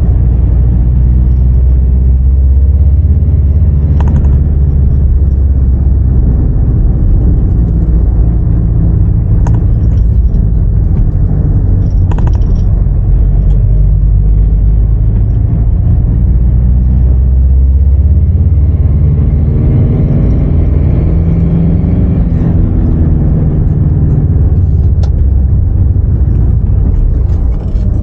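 Mitsubishi L200's 2.5 litre turbodiesel engine and drivetrain rumbling steadily while the truck is driven. About two-thirds of the way through, the engine note climbs as it pulls harder, then eases off. The engine is down on turbo boost and feels underpowered.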